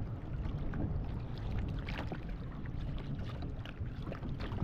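Water sloshing and lapping against the side of a fishing kayak, with small splashes where a snook is held in the water alongside to revive it before release, over a low wind rumble on the microphone.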